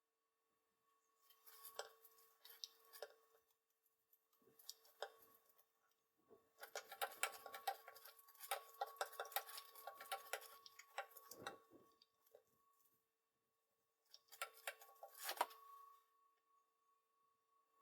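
Small painting tools scratching and tapping on wax-coated card on an encaustic hotplate, in several clusters of quick clicks and scrapes. A faint steady hum with two tones runs underneath.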